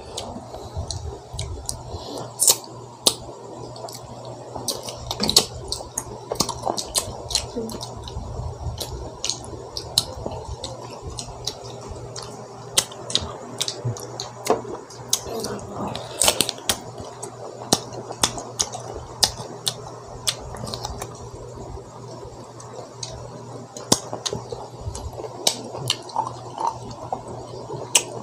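Close-up eating sounds of a man biting and chewing green mango: irregular wet, crunchy mouth clicks and smacks throughout, over a steady low hum.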